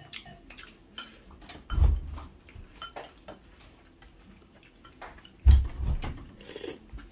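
Spoons and chopsticks clicking and clinking against bowls and dishes during a meal, with two dull thumps about two seconds and five and a half seconds in.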